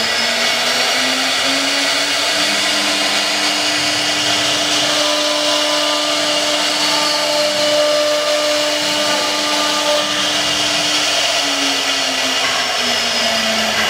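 CNC router spindle whining as its end mill cuts a groove through PVC foam board, with the hiss of chips being thrown. The whine rises slightly in pitch in the first couple of seconds, holds steady, and sags back down near the end.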